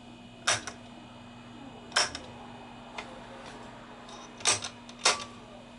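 Slide switches on an Akai 1730D-SS reel-to-reel tape deck being flicked: five sharp clicks, each with a lighter second click close behind, the middle one faint, over a steady low hum.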